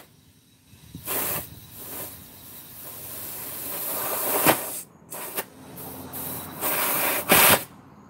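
Compressed air hissing in several bursts from an air chuck pressed onto a car tyre's valve stem, as a low tyre is inflated. There is one short burst about a second in, a longer one that builds from about two seconds to four and a half, and more near the end.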